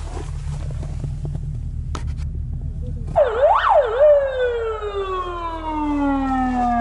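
A siren sounding the call to gather for lunch. About three seconds in it gives two quick up-and-down wails, then one long falling tone that slides down and dies away.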